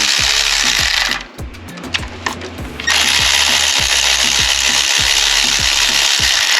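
A power tool running in two long bursts with a short pause of a second or two between them, over background music with a steady beat.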